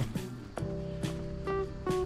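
Background music with several held notes that enter about half a second in.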